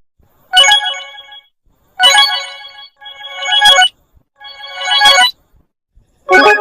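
Samsung phone notification tone, an electronic chime of several bell-like notes, played five times in short bursts about a second or so apart.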